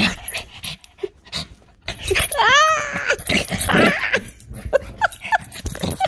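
Shih Tzu vocalising close up in an excited fit: one long whine that rises and falls about two seconds in, then a few short yips about five seconds in, with noisy huffing between.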